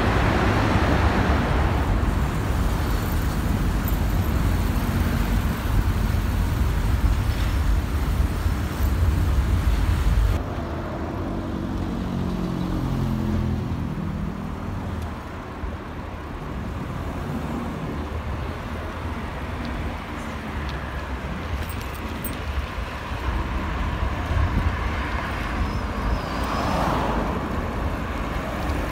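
Loud, deep, steady road-traffic rumble inside a road tunnel, cutting off abruptly about ten seconds in. After that comes quieter roadside traffic noise, with a passing vehicle's engine falling in pitch soon after the cut.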